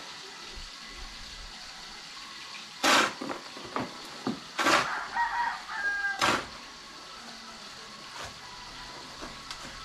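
Three loud, short scraping or striking noises about a second and a half apart, with a chicken calling briefly between the second and third.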